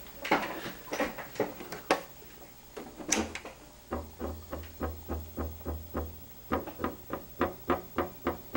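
Marco CP-690E chart projector cycling its mechanism: sharp clicks, scattered at first, then an even run of about three a second, with a low motor hum for a couple of seconds in the middle. These are its usual operating sounds, the projector working normally after its C4 capacitor was re-soldered.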